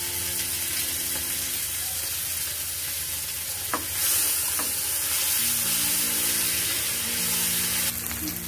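A coarsely ground paste sizzles as it fries in hot mustard oil in a nonstick frying pan while a spatula stirs it. The sizzle grows louder about halfway through as the paste is spread around the pan, with a couple of light spatula taps against the pan near the middle.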